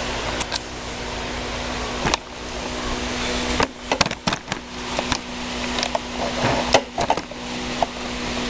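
Sharp metallic clinks and knocks of hand tools on a Briggs & Stratton lawnmower engine being stripped down to take the cylinder head off. They come in an irregular cluster through the middle, over a steady background noise with a low hum.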